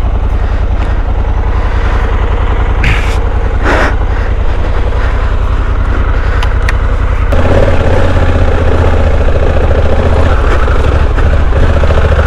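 Motorcycle engine running steadily, then louder from about seven seconds in as it picks up revs, with a couple of short knocks around three to four seconds in.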